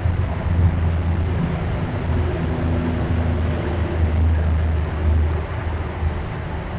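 Low, steady rumble of motor traffic, with a deep hum that swells and fades slightly.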